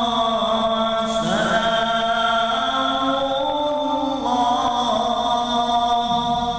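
A man singing sholawat, Islamic devotional chant, solo into a microphone, in long held melismatic notes that glide up and down in pitch.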